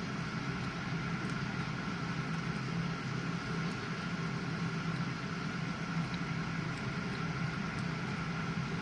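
GE dishwasher running: a steady low hum with a fainter higher tone over an even hiss, unchanging throughout.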